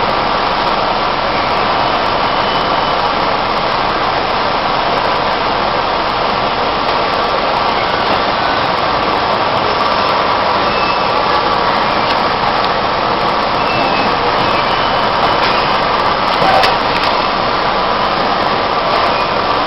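3 HP industrial vacuum cleaner running steadily, a constant motor whine with air rushing through the hose, and one short knock near the end.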